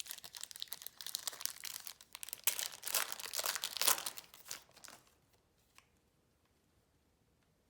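A trading-card pack wrapper being torn open and crumpled: dense crinkling and crackling, loudest in the middle, dying away about five seconds in.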